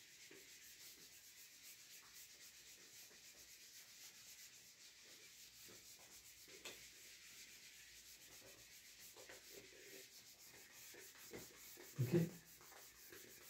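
Faint rubbing of a whiteboard duster wiping marker off a whiteboard. A brief low sound stands out about twelve seconds in.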